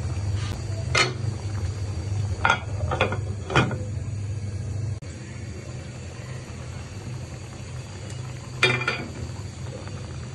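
A cooking spoon knocking and scraping against a pot on the stove: a few sharp taps in the first few seconds and a cluster near the end, over a steady low hum.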